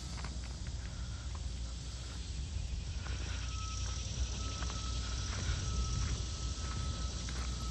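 Diesel engine of a Caterpillar 325BL crawler excavator idling with a steady low hum, with a thin high tone that comes and goes. Scattered footsteps on the dirt and gravel.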